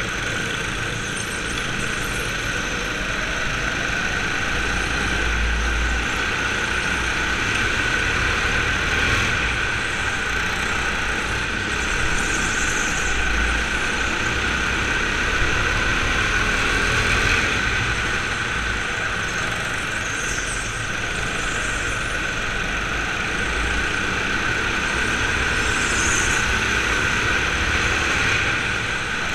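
Racing go-kart at speed on an indoor concrete track, heard from the driver's seat: a steady high motor whine over tyre and chassis noise, swelling and easing gently through the corners.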